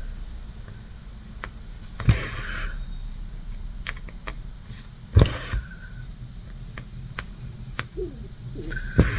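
Quiet handwork sounds from cross stitching: three soft knocks, each followed by a brief rasp, about two, five and nine seconds in, with a few faint ticks between, the sound of needle and thread being drawn through the fabric.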